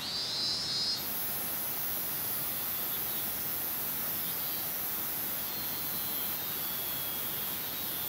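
Minmin-zemi cicada (Hyalessa maculaticollis) calling in a steady drone, loudest in the first second and then fainter. From about a second in, a louder, very high-pitched steady hiss joins it.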